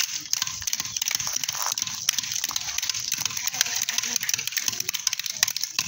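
Several people beating dried shea nuts spread on the ground with wooden sticks, cracking the shells: a dense, irregular stream of sharp knocks and cracks.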